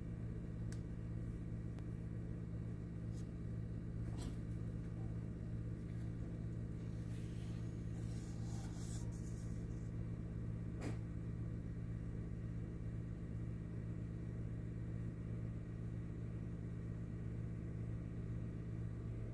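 Steady low electrical hum, with a couple of sharp clicks and a brief rustle about eight seconds in.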